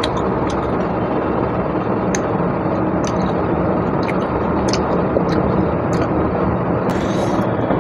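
Steady low background rumble, with scattered faint wet clicks of chewing and eating by hand over it, and a short hiss near the end.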